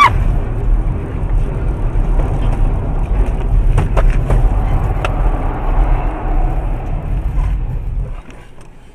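Car in motion heard from inside the cabin: a steady low road and engine rumble, with a few short sharp knocks about four and five seconds in. The rumble falls away sharply near the end.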